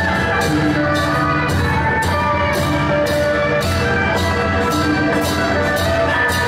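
Festive temple-procession music: a sustained melody over steady drumming, with a cymbal hit about twice a second.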